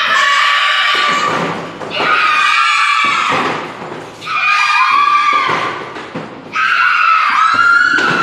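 A bus's multi-tone 'telolet' air horn sounding about four blasts of roughly two seconds each, several notes at once, some sliding down in pitch as they end.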